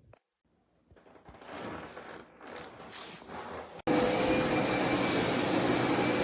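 Upright carpet cleaner's suction motor running steadily and loud, cutting in abruptly a little under four seconds in after a quieter stretch of uneven noise.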